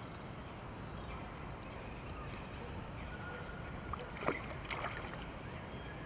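Steady low rumble of wind and river flow on an open riverbank, with a few sharp clicks and knocks around the middle and a couple of brief thin whistling tones.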